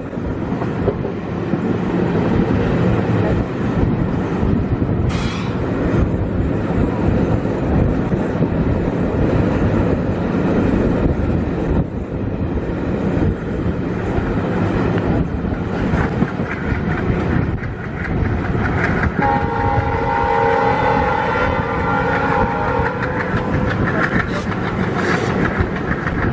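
Passenger coach running at speed, heard from its open doorway: a steady rumble and clatter of wheels on rail joints. About 19 seconds in, a steady multi-tone horn sounds over it for several seconds.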